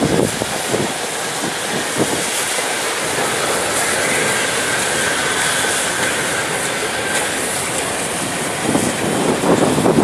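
Steam train hauled by LMS Princess Royal class Pacific 6201 Princess Elizabeth rolling slowly past, with a steady rumble of wheels on rail and some irregular clatter. A faint wheel squeal sounds briefly around the middle.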